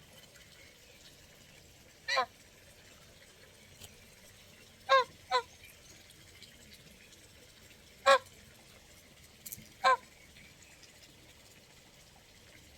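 Goose honking: five short, separate honks spread over the stretch, two of them in quick succession about five seconds in.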